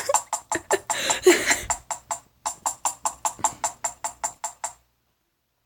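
A bird tapping in a quick, even rhythm of about five taps a second, stopping abruptly near the end. A brief voice or chirp sounds over the first taps.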